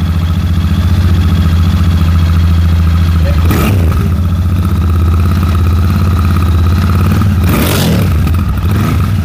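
Royal Enfield Shotgun 650's parallel-twin engine idling steadily through its twin exhausts, with two short bursts of noise about three and a half and seven and a half seconds in.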